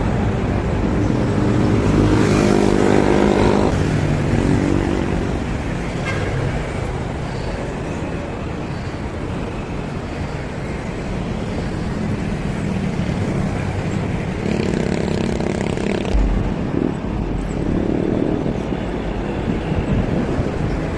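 Road traffic heard from a moving bicycle: motor vehicles pass, one engine loudest about two to four seconds in, over a steady low rumble of wind and road noise.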